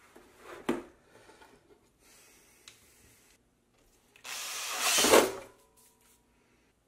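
Makita 18V cordless drill drilling into a plastic lid, a loud burst of about a second and a half that builds and stops, in the last part. Before it, a sharp knock and soft handling noises.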